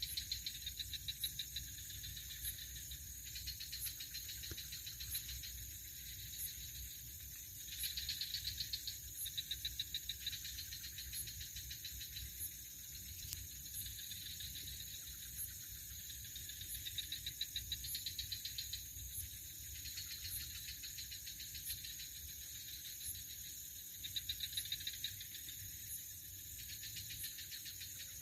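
Night chorus of insects: a steady high-pitched trilling, with pulsing chirp phrases a second or two long that come back every few seconds, and a soft tick about once a second high up.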